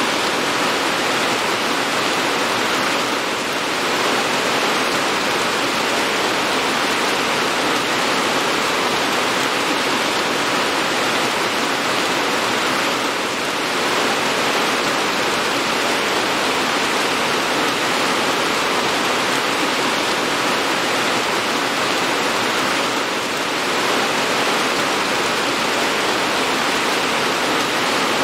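Steady heavy rain: an even rushing hiss with no single drops standing out, dipping slightly in level about every ten seconds.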